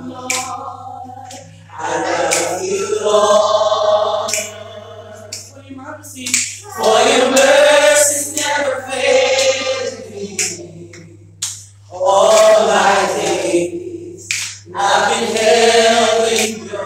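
Voices singing a gospel worship song without instruments, in long drawn-out phrases with short breaks between them, over a steady low hum.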